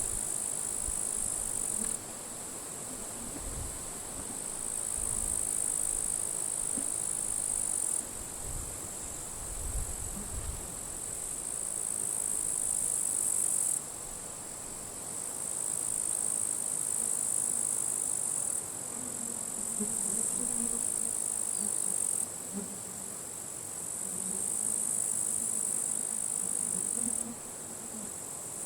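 Grasshoppers crackling in dry grass: a continuous high buzzing that shifts abruptly between louder and softer bouts every few seconds. Wind gusts rumble on the microphone in the first half.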